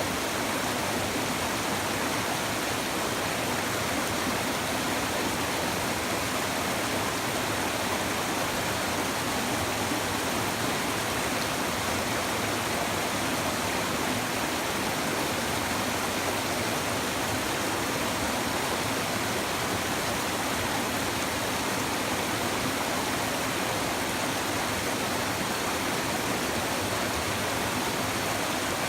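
A shallow river babbling over stones, a steady rushing of running water.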